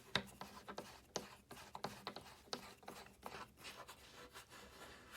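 Plastic feet being screwed by hand into the tool-free Turn-N-Tube shelf board: irregular clicks, scratches and scraping of plastic against the board, stopping abruptly near the end.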